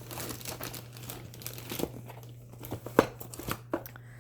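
Packaging crinkling and rustling as items are handled and lifted out of a box, with a few sharper crackles, the loudest about three seconds in.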